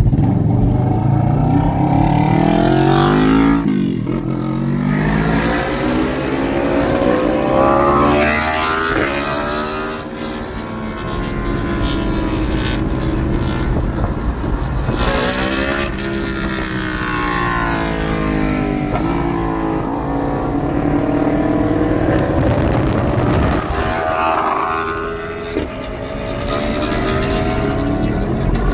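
Vehicle engines revving and passing, the pitch rising and falling several times over a constant low rumble.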